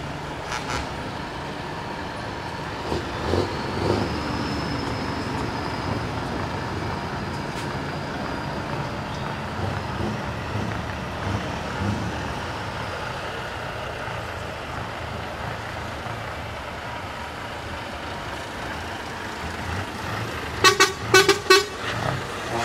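Trucks in a parade convoy driving past with engines running. Near the end a truck horn sounds a quick run of about five short, loud toots.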